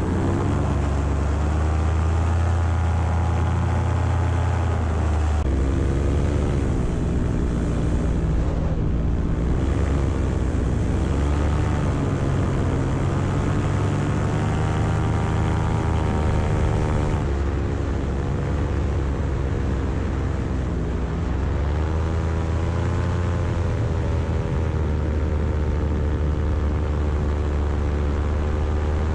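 Paramotor engine and propeller running in flight. It stays loud throughout while its pitch sags and climbs again several times as the throttle changes, dipping most clearly about nine seconds in and again around twenty-one seconds.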